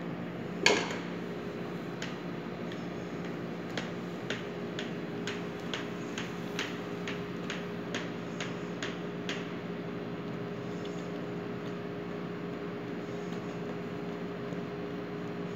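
A spatula knocking and tapping against a stainless steel mixing bowl while a mousse is folded: one sharp metallic knock about a second in, then light taps about two a second until about nine seconds in. A steady low hum of kitchen machinery runs underneath.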